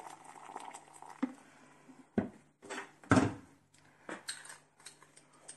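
Kitchen handling: a few separate knocks and clinks of a metal spoon and dishes as coarse salt is scooped from a small bowl; the loudest knock comes about three seconds in.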